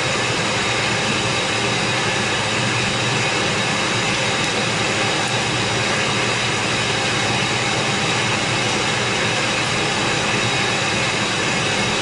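Engine of a 2004 Ford F-150 running steadily during a transmission test, a loud even noise that does not change.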